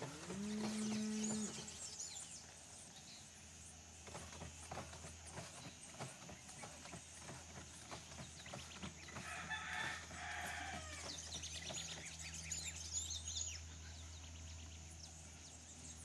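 Farmyard animals: a cow's low moo in the first second or so, a rooster crowing about nine to eleven seconds in, and small birds chirping, over a low steady hum.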